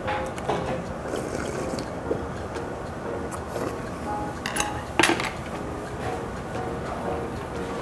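Metal chopsticks clinking against a stainless steel bowl and tableware while eating. Two sharp clinks come about four and a half and five seconds in, the second the loudest.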